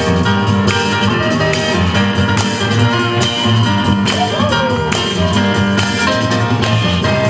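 Loud music with a steady beat, bass line and guitar, played over the sound system for the dancers.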